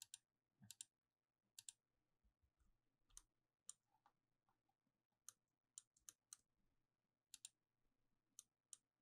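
Faint, scattered clicks of a computer mouse and keyboard, a dozen or so at irregular spacing, some in quick pairs, over a faint steady low hum.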